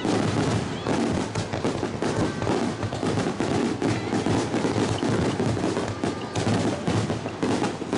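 Fireworks bursting in quick succession, a dense, unbroken run of bangs and crackles.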